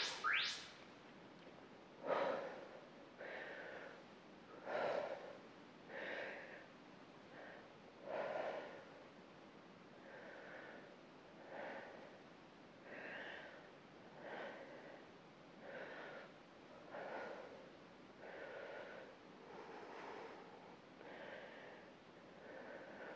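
Faint, rhythmic breathing of a woman working out, one breath about every second and a half, the exhales timed to dumbbell chest presses.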